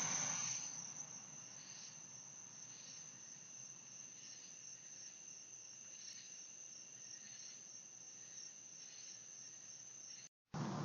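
Crickets trilling in a steady, high, continuous tone, with a faint regular pulsing.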